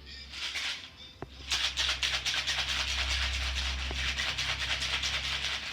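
Ice rattling in a cocktail shaker shaken hard: a short burst at the start, then a fast, steady rattle from about a second and a half in.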